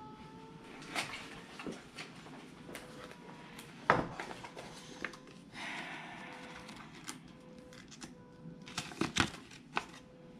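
Hands handling paper and packaging: scattered rustles, light clicks and taps, with one sharper knock about four seconds in and a short patch of paper crinkling a little later.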